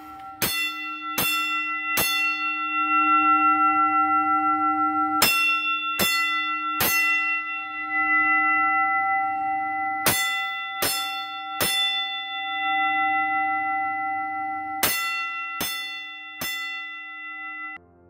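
Old school fire alarm bell struck in a coded pattern: four rounds of three strokes, each round about four to five seconds after the last, with the ring carrying on between strokes. The sound cuts off sharply near the end.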